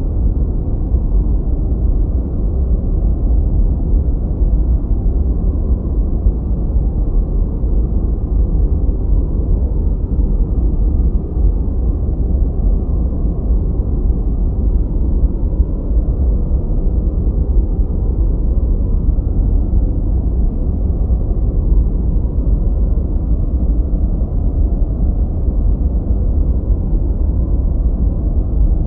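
Gentle white noise: a steady, unchanging rushing noise with the treble cut away, deep and muffled, heaviest in the low rumble.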